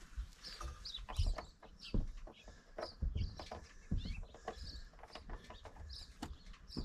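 Scattered small clicks and knocks as drain plugs are screwed back into a travel trailer's low point drains and water heater, with small birds chirping in the background.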